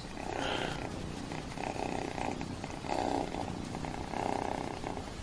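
Young tabby kitten purring steadily while its belly is stroked, the purr swelling and easing with each breath.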